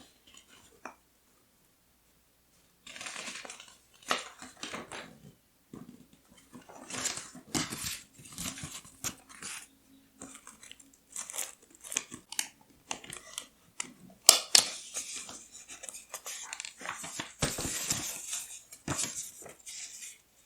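Paper and stationery being handled in bursts: rustling and crinkling of paper with light taps and clicks, the sharpest click about fourteen seconds in.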